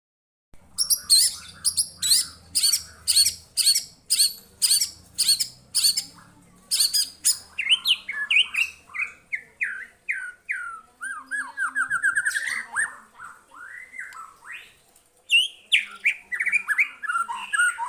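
White-rumped shama (murai batu) singing loudly and without a break. It opens with a run of sharp, very high repeated notes about twice a second, then goes into varied phrases of falling whistled notes and fast trills. It pauses briefly near the end, then starts again.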